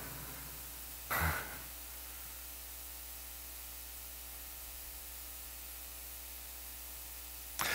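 Steady hiss with a faint low electrical hum, the background noise of the recording or sound system. About a second in, one short low voice sound is heard.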